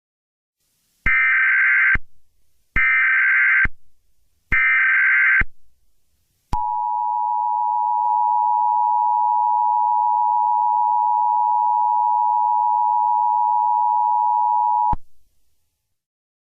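Emergency Alert System SAME header: three one-second bursts of warbling data tones, about a second apart, then the EAS two-tone attention signal, a steady harsh dual tone held about eight seconds that cuts off suddenly.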